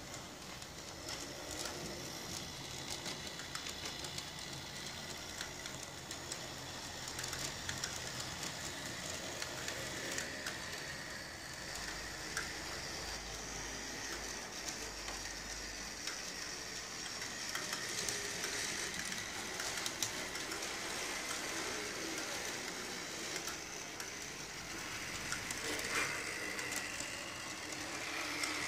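Bachmann Peter Witt model streetcars running on the track: a steady whirr of small electric motors with a faint whine and frequent light clicks from the wheels on the rails.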